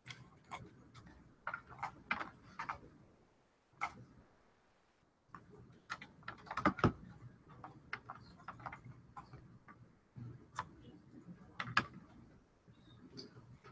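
Irregular clicks and taps of a computer keyboard and mouse being used, with a louder knock about seven seconds in.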